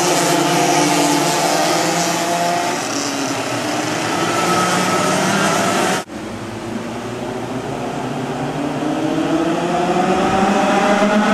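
A pack of racing karts' two-stroke engines running at high revs, several engine notes overlapping. In the first half the pitches sag as the karts slow for a corner; after an abrupt cut about six seconds in, the notes climb steadily as the pack accelerates.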